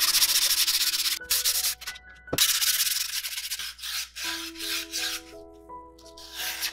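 Sandpaper rubbed by hand over a wooden tray. A long stroke comes first, then shorter back-and-forth strokes that settle into about two a second in the second half.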